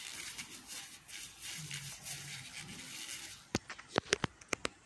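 Faint low voices murmuring over a steady hiss, then a quick run of about seven sharp clicks in the last second and a half.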